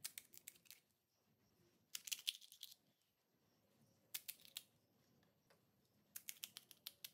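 Crisp fried puri shells cracking as a thumb breaks a hole in the top of each one: four short bursts of small, sharp crackles, a second or two apart.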